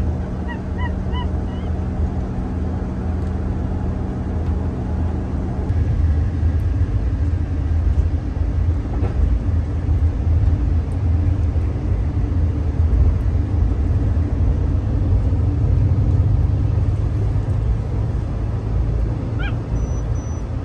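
Road and engine rumble inside a moving car's cabin, with a steady hum that gives way to a broader rumble about six seconds in. A few short high chirps come about a second in.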